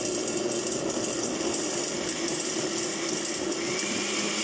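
Countertop blender with a glass jar running steadily, puréeing tomatoes, pasilla chile, garlic and onion into a liquid sauce. A steadier humming tone comes into the motor sound about three and a half seconds in.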